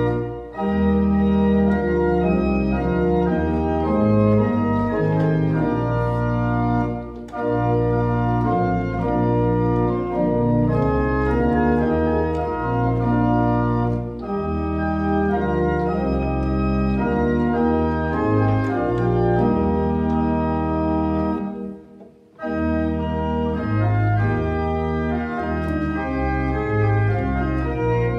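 Pipe organ playing sustained chords over a deep bass, the chords changing about once a second, with a brief pause between phrases about 22 seconds in.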